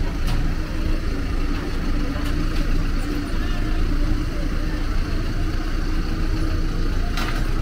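Minibus engines idling close by: a steady low rumble.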